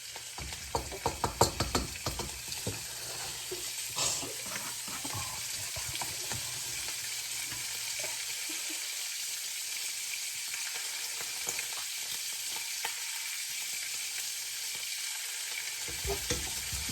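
Bacon frying in olive oil in a pan, a steady sizzle throughout. A quick run of sharp clicks and knocks in the first couple of seconds, like utensil strokes in the pan.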